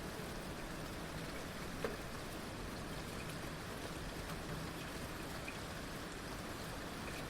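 Heavy rain falling steadily, an even hiss of many drops. One sharper drop stands out near two seconds in.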